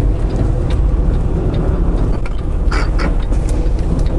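Semi-truck's diesel engine running with a steady low rumble while the truck moves slowly, heard from the cab. A couple of short rattles come about three seconds in.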